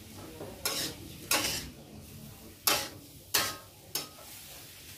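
Metal spatula scraping and knocking against a wok as tempeh is stir-fried, about five strokes spread over the few seconds, with low sizzling from the pan underneath.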